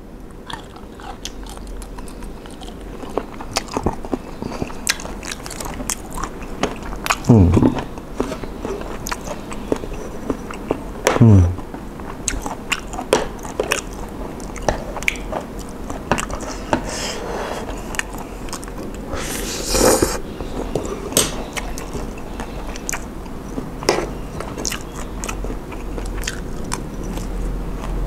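Close-miked mouth sounds of a man eating spicy seafood papaya salad: biting into a shrimp, then wet chewing with many small crunches. Twice, around a quarter and two-fifths of the way in, a short falling vocal sound, and a brief hiss about two-thirds through.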